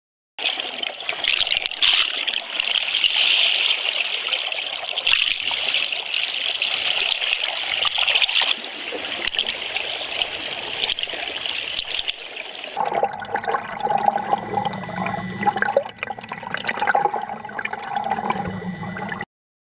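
Water noise heard underwater: a steady hiss with scattered clicks. About thirteen seconds in it changes to a rougher sound with a low hum and steady tones mixed in.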